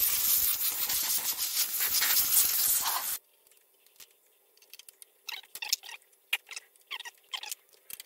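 Compressed air hissing steadily from an air blow gun, blasting dirt off a lawnmower engine; it cuts off about three seconds in. Faint scattered clicks and taps of hands and tools on the engine follow.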